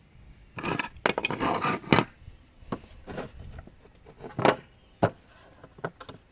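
Small salvaged parts being handled and set down on a surface: about a second of rattling and scraping, then four or five separate knocks.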